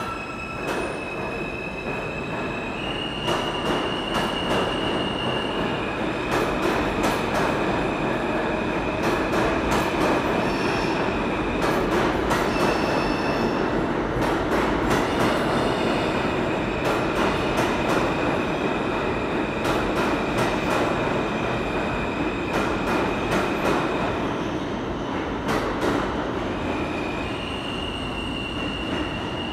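R160 subway train pulling out of the station and running past the platform. The cars rumble steadily and the wheels click over rail joints, with high steady squealing tones that jump in pitch several times.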